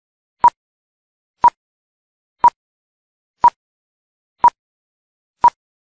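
Countdown beeps from an intro animation: six short, identical electronic beeps of one pure pitch, one each second.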